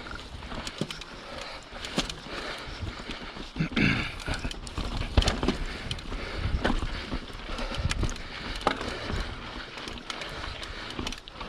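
YT Capra 29 mountain bike descending a rough dirt trail: tyre noise and wind with frequent irregular clatters and knocks as the bike rattles over rocks and roots.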